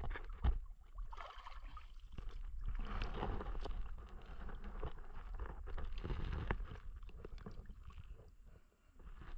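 Splashing and dripping water as a gill net with fish in it is hauled out of the river over the side of a wooden boat, with knocks against the hull; one heavy thump about half a second in.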